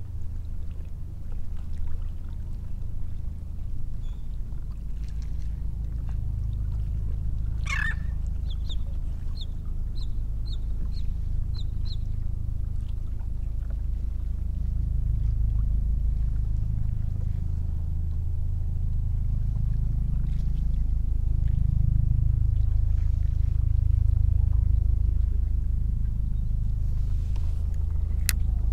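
Low steady rumble of wind and water around a kayak. About eight seconds in, a bird gives one harsh call and then a string of short high chirps. Two sharp clicks come near the end.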